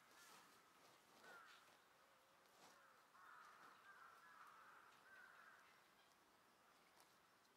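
Faint crow caws: a couple of short harsh calls, then a longer run of cawing in the middle, over near silence with a few faint clicks.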